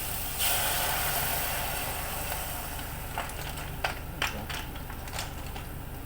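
Water poured into a hot pan of sautéed clams, onion and garlic, hissing and sizzling sharply about half a second in and fading over a couple of seconds. A few sharp clinks follow.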